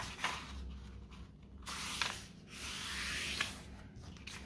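Hands sliding over a folded sheet of letter-size paper, pressing the fold into a crease: two rubbing swipes of about a second each in the middle, with a few soft paper clicks.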